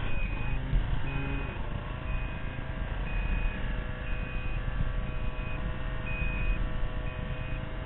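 Ski-Doo snowmobile engine running at steady low revs while its reverse warning beeper sounds a short high beep about once a second, the sign that the sled is in reverse.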